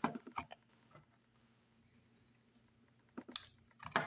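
Small cardboard box handled on a wooden tabletop: a few light knocks and rustles near the start, quiet for a couple of seconds, then more light knocks near the end as it is picked up.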